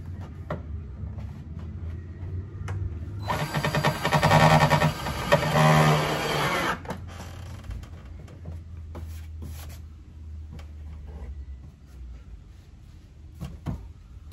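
Cordless drill running in two bursts of about a second and a half each, a few seconds in, driving fasteners while a rear diffuser is fitted under a car's bumper. Light clicks and knocks of handling come before and after.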